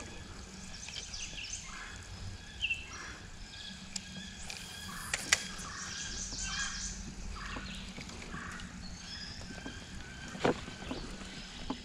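Wild birds calling and singing, many short high notes overlapping, with a few sharp clicks from about five and ten seconds in.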